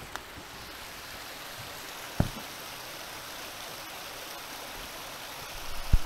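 Waterfall rushing steadily, an even hiss of falling water. There is a sharp thump about two seconds in and a few low rumbles near the end.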